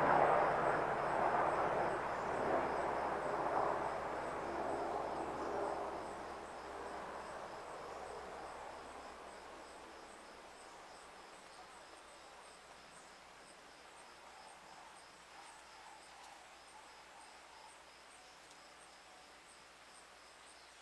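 A passing engine's drone fades away over the first ten seconds or so, leaving insects chirping in steady, evenly spaced pulses.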